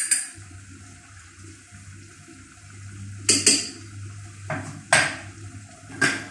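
Utensils clinking and tapping against small dishes and a cooking pot while spices are added. There is a quick run of clinks at the start, then single sharp clinks a little past three seconds, around four and a half and five seconds, and again near the end, over a steady low hum.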